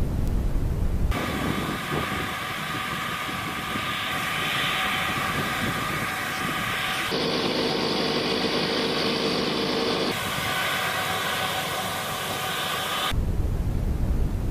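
Steady machinery noise from a military vehicle, changing abruptly several times as the footage cuts; in the middle stretch it becomes a hum with a few even pitches.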